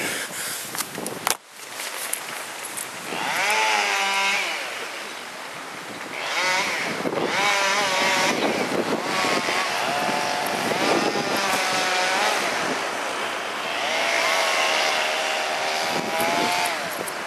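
A small engine revving up and down in four long spells, rising and falling in pitch each time. A single knock comes about a second in.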